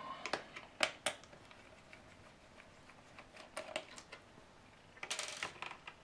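Scattered light clicks and taps of small laptop screws and a precision screwdriver handled against a laptop's plastic base, with a quick run of clicks about five seconds in.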